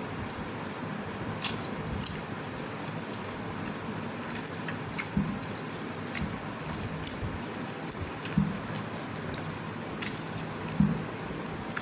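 A hand kneading soft, wet bread dough of flour, milk and oil in a glass bowl, with a few sharper clicks along the way.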